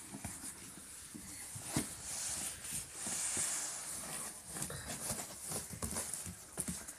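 Cardboard box rustling and scuffing on carpet as it is handled, with scattered small knocks and a soft hiss in the middle.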